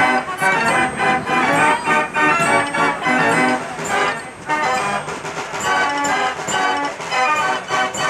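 Fairground organ playing a tune, its pipes sounding over a steady beat.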